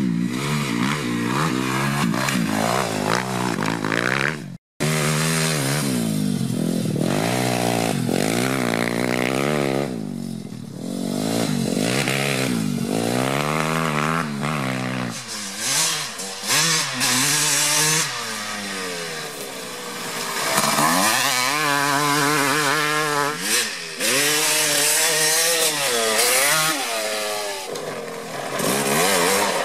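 Motocross dirt bike engines revving hard, the pitch climbing and dropping again and again as the throttle is opened and shut, in several short clips with a sudden cut about four and a half seconds in. Near the end it is the yellow Suzuki RM250 two-stroke.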